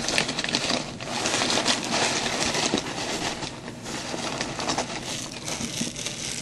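Packing paper rustling and crinkling, a continuous irregular crackle as hands pull it out of a cardboard shipping box.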